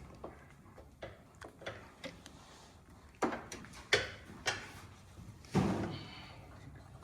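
Scattered knocks and clanks of work in a car repair shop, with a few louder bangs from about three to six seconds in.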